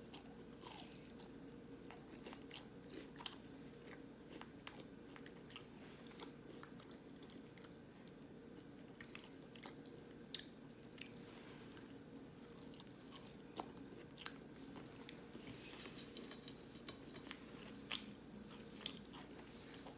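A person chewing a battered, crunchy vegan nugget close to the microphone: faint mouth sounds with small crunchy clicks, a few sharper crunches among them, over a steady low room hum.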